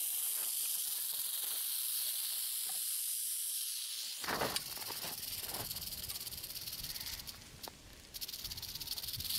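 Western diamondback rattlesnake shaking its raised rattle in a steady, high buzzing hiss, the defensive warning of a disturbed rattlesnake. About four seconds in a low rumble joins, and the buzz dips briefly near the end before returning.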